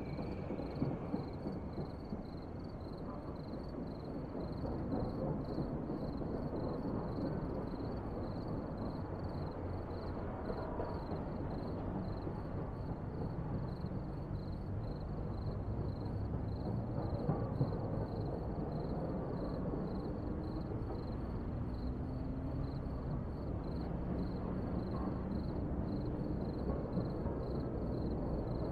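Steady low outdoor street ambience, a distant traffic rumble, with a faint high pulsing repeated at an even pace.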